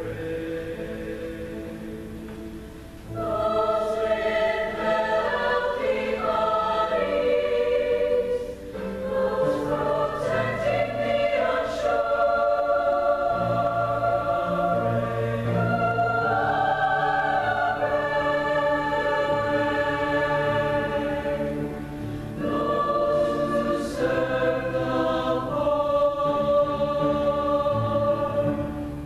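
School concert choir singing a slow piece in held chords. It grows louder about three seconds in and has two short breaks between phrases.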